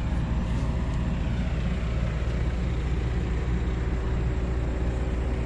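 Large diesel engine idling, a steady low drone that does not change.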